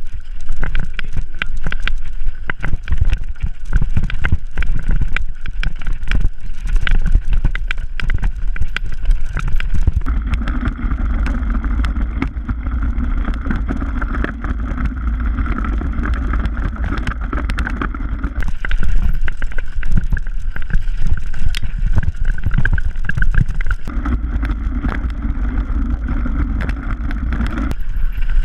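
Mountain bike descending a rough dirt and rock trail, heard on a body-mounted action camera. Wind buffets the microphone and the tyres rumble over the ground, with frequent knocks and rattles as the bike hits bumps. A steadier buzzing runs under it in the middle and again near the end.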